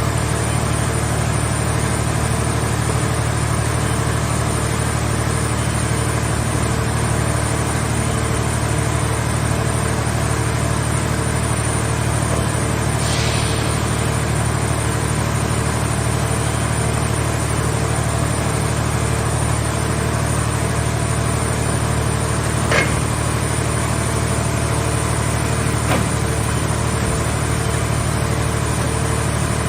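Car-shell baler's engine and hydraulic power unit running steadily at a constant hum. A short hiss comes about thirteen seconds in, and two sharp knocks about three seconds apart come later.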